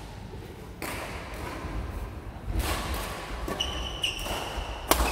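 Badminton rackets striking a shuttlecock during a fast rally: sharp cracks a second or two apart, the loudest and sharpest near the end. Sneakers squeak briefly on the wooden court floor in between.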